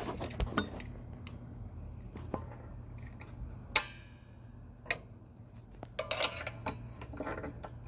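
Locking pliers and a flathead screwdriver clinking against the steel brake shoe and return spring of a semi-truck drum brake as the spring is pried loose, with a sharp metallic clank and brief ringing a little before the middle and a few more clicks later. A steady low hum runs underneath.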